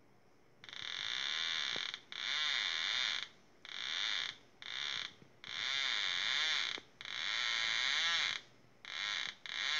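A homemade pinpointer metal detector's buzzer giving about eight high, buzzing beeps of uneven length, half a second to over a second each, with short gaps between. It sounds as a coin is held near the detector's search coil, signalling that metal has been detected.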